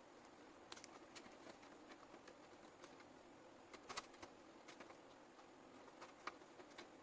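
Faint, irregular clicks and light taps of computer parts and cables being handled during a PC build, the sharpest click about four seconds in, over a low steady hum.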